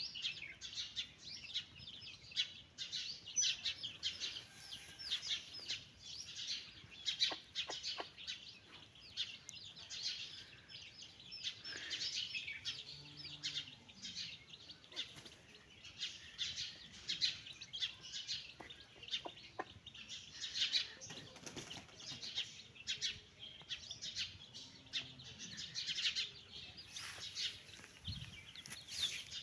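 A brood of domestic chicks peeping continuously in many rapid, high-pitched cheeps, with a hen giving a few low clucks a little before the middle and again later on.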